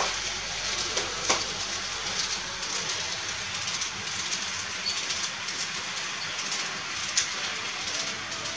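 TT-scale model steam train running on its track: a steady hiss with a few light clicks.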